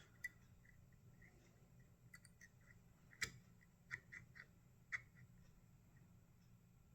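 Faint, irregular small metallic clicks from a disk detainer pick turning the discs inside a Parkside disk detainer lock. The sharpest click comes about three seconds in, with a quick cluster of clicks about a second later and one more near five seconds.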